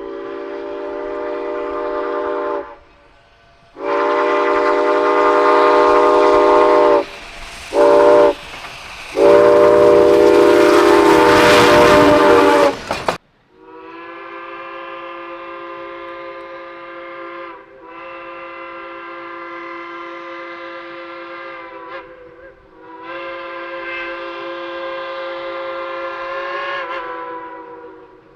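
A multi-chime train whistle sounds long, long, short, long, the grade-crossing signal, with the loud noise of the passing train during the last blast, then cuts off abruptly. A second, different chime whistle follows with three long, quieter blasts.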